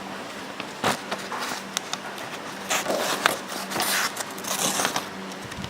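Handling noise from a folding stainless-steel multi-tool: a few sharp clicks among rough scraping and rubbing sounds.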